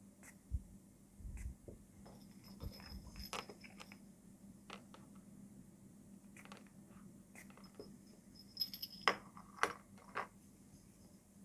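Metal split keyring and small jingle bell clinking and jingling as the crochet keychain pouch is handled, in scattered light clicks with a few louder clinks near the end.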